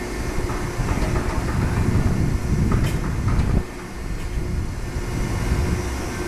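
Vibrator on a baler's manure tank running once with a heavy low rumble to shake the material loose, cutting off suddenly about three and a half seconds in; a steady machine hum carries on underneath.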